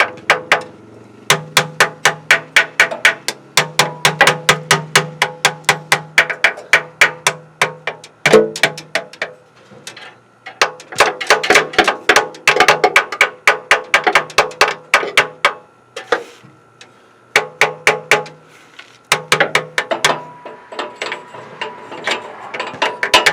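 Hammer tapping rapidly on the old, sticking starter motor of a 1994 Ford F-350, in runs of several sharp metallic taps a second with short pauses between, the metal ringing under the blows. The taps are meant to jar loose parts stuck inside a starter that has sat unused and often only clicks instead of cranking.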